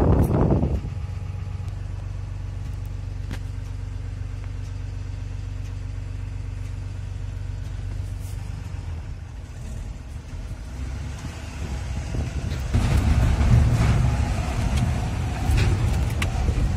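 A truck engine heard from inside the cab while driving, a steady low drone. From about 13 seconds in it grows louder and rougher, with a few knocks as the truck goes over rough, broken road.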